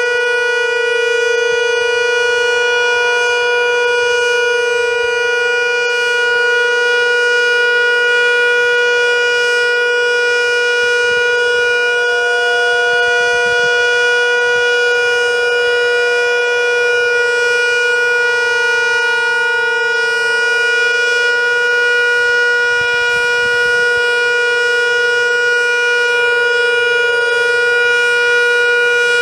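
Federal Signal Model 2 outdoor warning siren sounding its steady alert signal: one loud, sustained tone held at a constant pitch.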